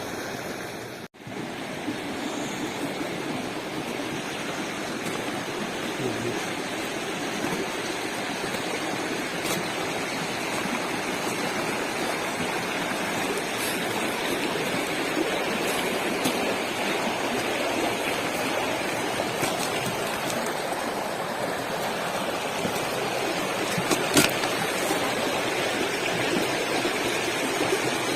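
Stream water rushing steadily, with the sound cutting out for an instant about a second in.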